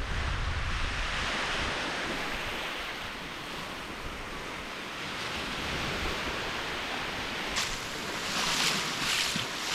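Ocean surf washing on a beach, a steady rushing hiss that surges louder near the end, with wind rumbling on the microphone at the start.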